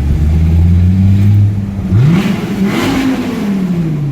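Dodge Viper GTS's 8.4-litre V10 on its stock exhaust pulling under throttle: the revs climb, break off about a second and a half in, then rise sharply again and fall away slowly.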